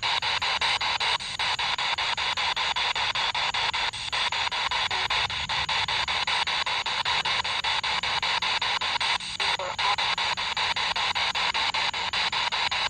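Spirit box sweeping through radio stations: a steady hiss of radio static chopped many times a second, with a few brief dips.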